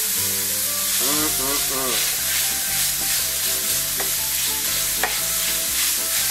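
Ground sirloin and garlic sizzling in olive oil in a skillet while a spatula stirs and scrapes through the browning meat, with a couple of sharp clicks of the spatula against the pan.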